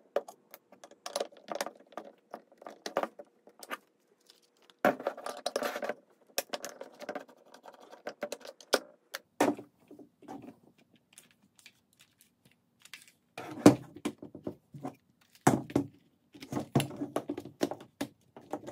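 Small clicks, clinks and rattles of work on a Makita cordless drill's plastic housing: screws being backed out with a hand screwdriver and set down on the tabletop, and the housing being handled. There is a louder knock about fourteen seconds in, then a stretch of busier handling near the end.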